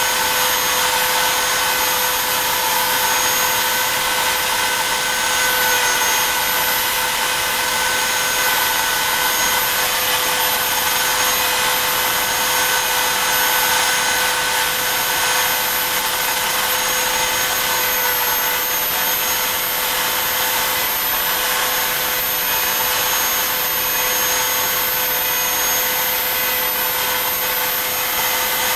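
Bob's CNC E3 desktop CNC router carving stars into a painted wooden board: the router spindle runs with a steady high whine over the hiss of the bit cutting wood, its pitch dipping slightly a couple of times.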